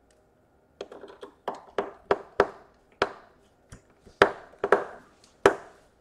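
Hands tapping and pressing on a laptop's aluminium bottom cover: about a dozen sharp, irregular taps and clicks, starting about a second in.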